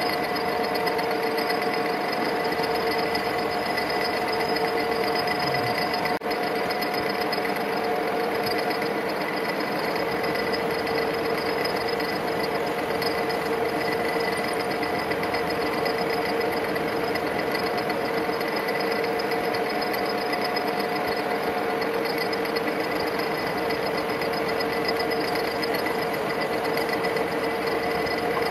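Mechanical metal lathe running steadily under a cut, a steady whine of several tones over the machine's rattle, as the tool turns a steel workpiece; the sound dips briefly about six seconds in.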